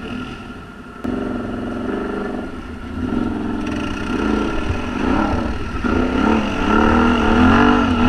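1000 cc V-twin ATV engine running, picking up about a second in and then revving up and down repeatedly as the quad pulls away and rides off.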